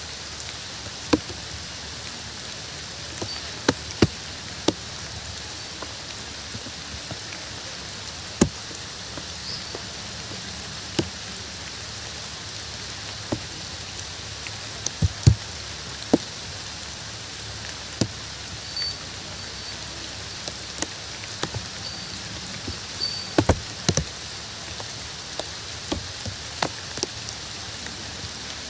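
Steady rain falling, with louder single drops striking close by at irregular intervals, a cluster of them in the middle and again near the end.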